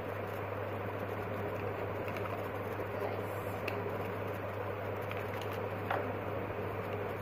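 Steady room noise: an even hiss over a constant low hum, with a few faint light clicks between about two and six seconds in.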